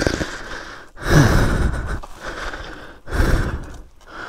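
A person panting heavily, with loud breaths in and out about every two seconds, out of breath from hard physical effort.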